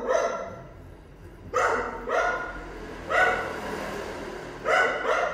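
A dog barking repeatedly: about five short barks, some coming in quick pairs.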